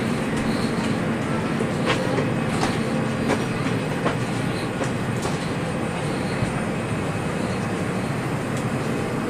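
Steady rushing of an Airbus A321's cabin ventilation air during boarding, with a few short clicks and knocks from luggage and overhead bins.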